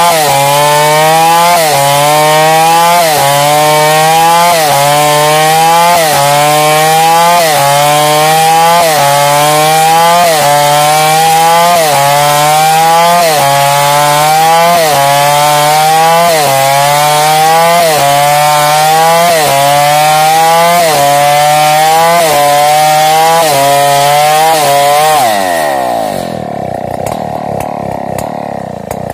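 New West 707 two-stroke chainsaw with a 36-inch Oregon bar ripping lengthwise through a log, its engine note rising and falling in a regular cycle about once a second as the chain works through the cut. About 25 seconds in the throttle is released and the engine drops to a lower, quieter idle.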